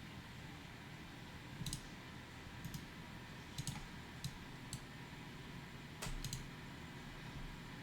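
About eight scattered computer mouse clicks, a couple in quick pairs, over a faint steady low hum.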